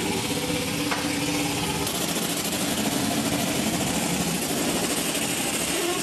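A large engine running steadily, with an even, low hum.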